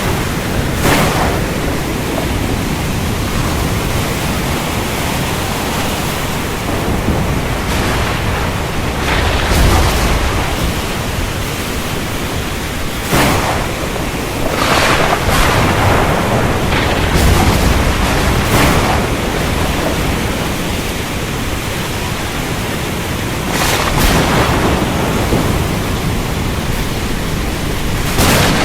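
Steady heavy rain with thunder: a run of sharp cracks several seconds apart and deep rumbles about ten seconds in and again around seventeen seconds.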